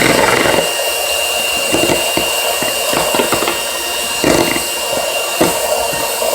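Electric hand mixer running steadily, its beaters whirring through a thin egg-and-milk mixture and knocking against the bowl at irregular moments.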